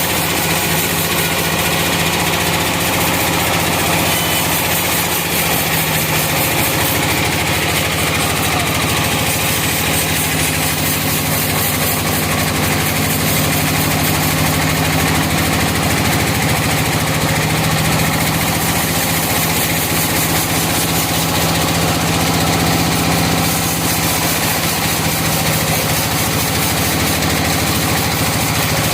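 Sawmill engine running steadily at an even speed, with a dense mechanical noise over it.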